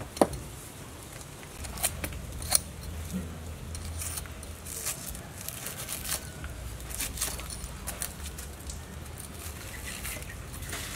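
Axe blade knocking and scraping against a fire-singed cow's leg, rasping the charred skin and hair off the hoof on a concrete slab. A sharp knock comes about a quarter second in and two more around two seconds in, then irregular short scrapes.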